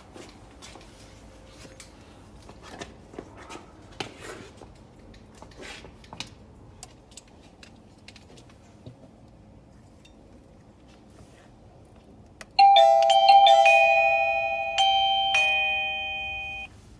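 Wi-Fi video doorbell chime playing a ding-dong melody of several ringing notes, starting about three-quarters of the way in and cutting off abruptly near the end. Before it, only faint clicks of handling.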